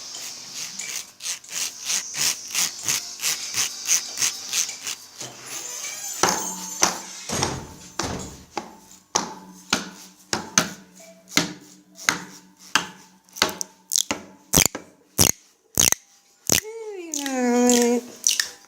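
Improvised percussion on everyday objects used as instruments: steady strikes about twice a second over a scraping, rasping layer. Near the end a pitched sound slides downward.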